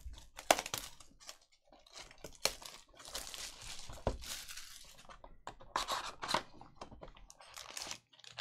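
Packaging of a 2020 Panini Prizm Football hobby box being torn open, with wrappers crinkling in irregular bursts and sharp clicks and taps of packs and cards being handled.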